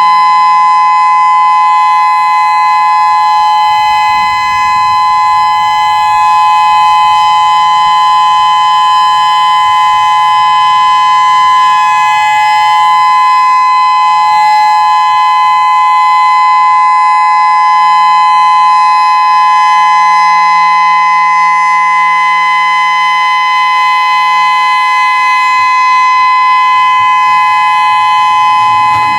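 Whelen WPS-3016 electronic outdoor warning siren sounding a steady alert tone, two pitches held together without rising or falling.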